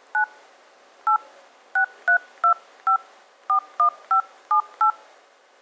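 Mobile phone keypad dialing a number: eleven short DTMF beeps, each two pitches sounding together, keyed in an uneven rhythm over a faint hiss.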